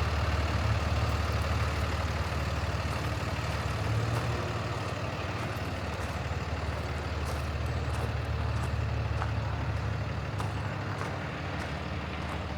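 Paccar PX-7 inline-six diesel engine of a 2018 Peterbilt 337 box truck idling steadily as a low rumble, with a few faint clicks.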